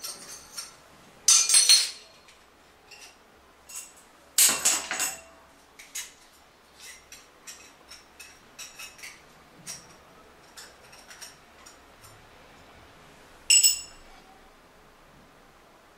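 Chrome flush-valve fittings clinking and clattering as they are handled and set down on the toilet tank lid. There are three louder clatters, about a second and a half in, around four and a half seconds, and near the end, with light ticks in between.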